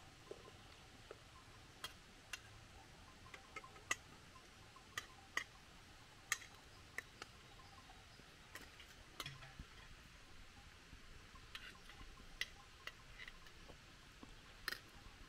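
Irregular light clicks and taps, about one or two a second, over a faint quiet background.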